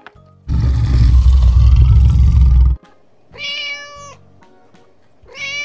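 A dinosaur roar sound effect, deep and loud, lasting about two seconds and cutting off sharply, followed by two cat meow sound effects, each a little under a second long and about two seconds apart.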